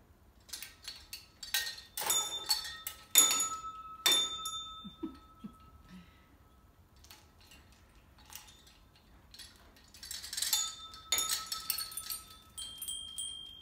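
Metal clinking and ringing from a parrot's hanging perch and dangling toys as the bird swings and plays on them. It comes in two rattling bursts, one early and one near the end, each leaving clear chime-like tones ringing.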